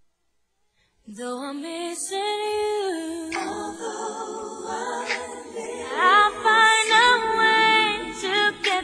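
Near silence, then about a second in a recorded song begins: several female voices singing together in harmony without words, with little or no instrumental backing.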